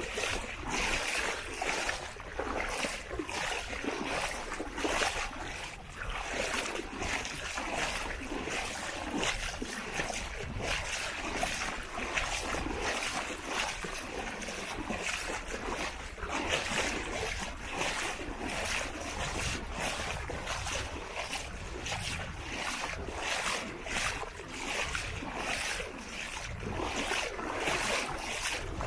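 Beach ambience: wind buffeting the microphone over a steady wash of small waves, with soft footsteps on the sand about twice a second.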